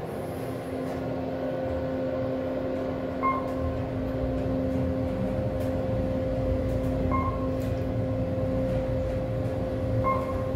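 KONE MonoSpace traction elevator car travelling upward: a steady two-tone hum from the drive with a low rumble that builds in the first few seconds, and a short beep three times.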